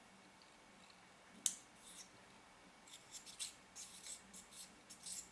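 Small metal lens parts being handled and fitted together by hand: a sharp click about a second and a half in, then a run of light clicks and scrapes.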